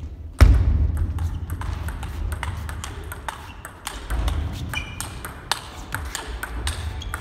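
Table tennis rally: the ball clicks sharply off bats and table in quick succession, with a heavy low thud about half a second in.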